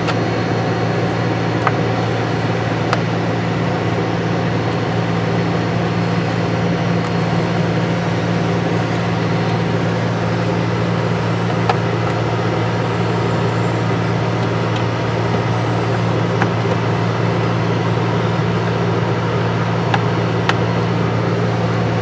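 A steady low mechanical hum with no change in pitch, and a few faint clicks and taps of plastic steering-column trim being handled and fitted.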